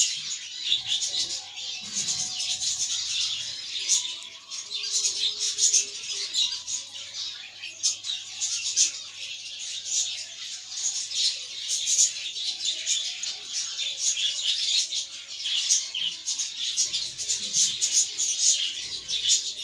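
A flock of caged budgerigars chattering and chirping continuously, many overlapping short calls.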